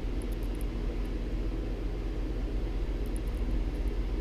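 Steady low hum and hiss of room background noise, with a few faint light clicks of small parts being handled, once near the start and again about three seconds in.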